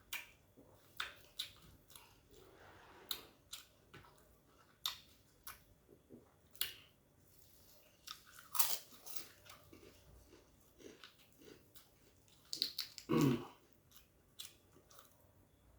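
A person chewing and eating a mouthful of rice and food close to the microphone: scattered wet clicks and smacks of the mouth, with a couple of louder, longer mouth sounds about halfway through and near the end.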